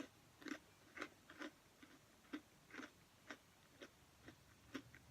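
Faint, even crunches about twice a second: a person chewing very thin, crispy pretzel-cracker crisps (Townhouse Pretzel Flipsides Thins).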